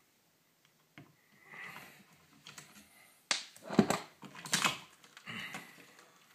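Clicks, taps and scrapes of an old electrical outlet and its screws being unscrewed and handled, with a cluster of sharp clatters in the middle.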